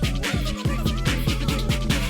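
Electronic dance music with a heavy beat: deep bass notes that drop in pitch repeat about four times a second under held chords.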